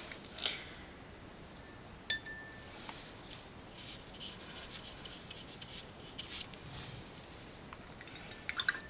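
Faint brushing of a Princeton Neptune quarter-inch flat brush laying watercolour paint onto paper, with one sharp clink about two seconds in.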